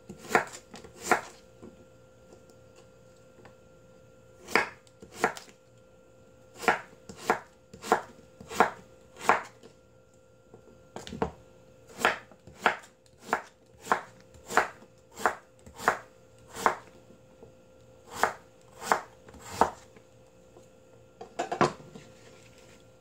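Kitchen knife slicing through a Korean radish (mu), each cut ending in a sharp knock on the wooden cutting board. The cuts come in runs of about three every two seconds, with a few short pauses between runs.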